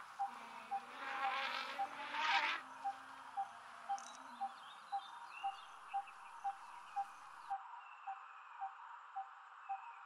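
Steady, even ticking at about two ticks a second, like a clock. A buzzing insect swells in around one to two and a half seconds in.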